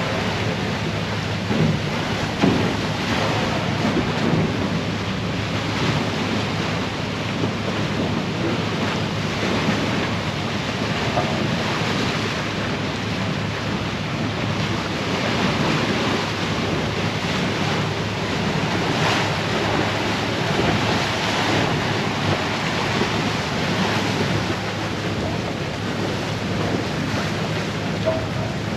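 Icebreaker's bow pushing through drift ice: a steady rush of crushing ice and water with irregular knocks as floes strike the hull, over a low steady engine hum. Wind buffets the microphone.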